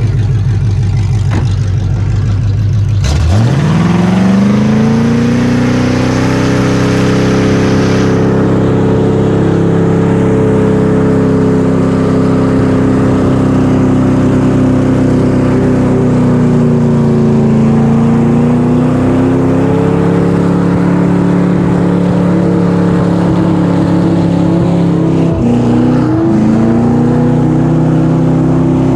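1975 C3 Corvette's V8 engine in a burnout: a low rumble, then about three seconds in a sudden rise to high revs that are held steady, with a short dip in revs twice.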